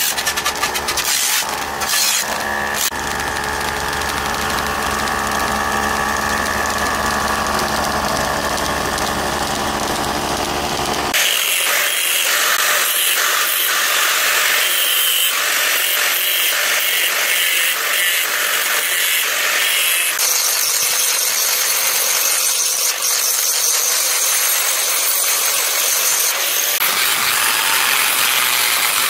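A power tool running in a metal workshop: a steady motor note for about the first eleven seconds, then a sudden change to a higher, hissing sound with no low hum.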